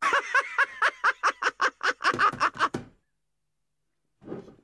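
A cartoon character's voice laughing: a fast, even string of short ha-ha pulses, about five a second, for about three seconds, then a sudden stop.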